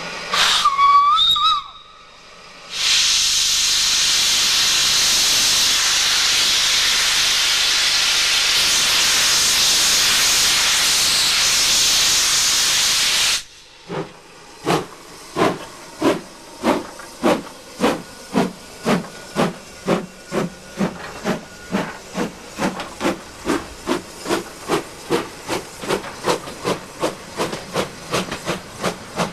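Ivatt Class 2MT 2-6-0 steam locomotive No. 46512 gives a short whistle, then a long steady hiss of steam for about ten seconds that stops suddenly. It then pulls away, its exhaust chuffing in slow, even beats that gradually quicken to about two a second.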